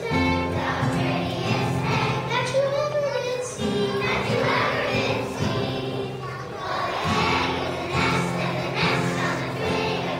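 A children's chorus singing together in unison over instrumental accompaniment.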